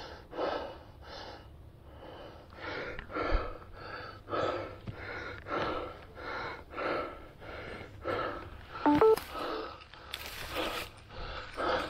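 A person breathing hard from exertion, panting in and out at about two breaths a second. There is a brief cluster of short tones about nine seconds in.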